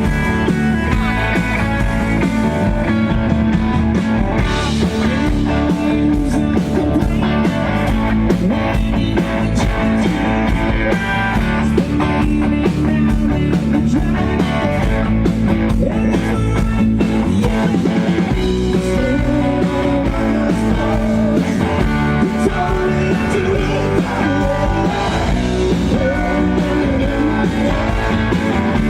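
Rock band playing loud, with electric guitar to the fore.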